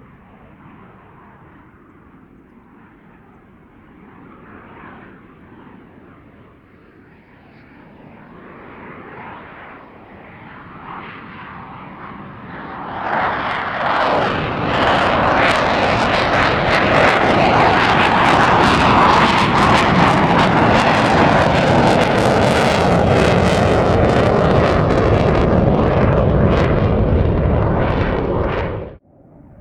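Fighter jet engine running in afterburner: a distant rumble that builds and turns loud and crackling about halfway through as the jet comes close, then cuts off abruptly near the end.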